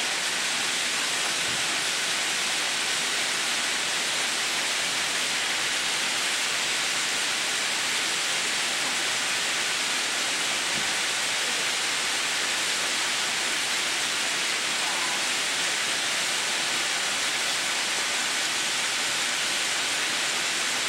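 Steady, even hiss of high-speed bobbin-winding machines running, filling spools with cotton string for visco fuse spinning.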